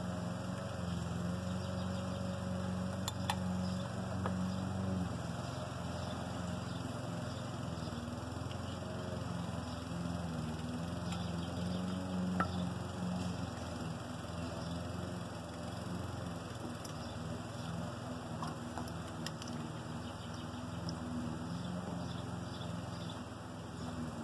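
A steady low engine drone in the background, swelling and easing in level, with a few faint light clicks of hands handling wiring and parts in an engine bay.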